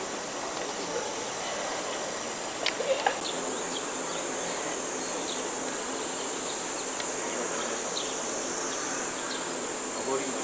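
Cicadas droning steadily and high-pitched, growing louder about three seconds in. A few sharp clicks sound just before.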